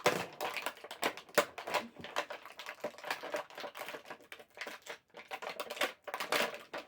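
Dense, irregular plastic clicks and rustling as an unboxed WWE action figure and its plastic packaging are handled.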